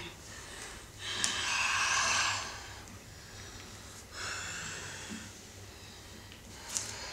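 A person breathing heavily: two long, breathy exhalations, one about a second in and a shorter one about four seconds in, with a sharp click after the first and another near the end.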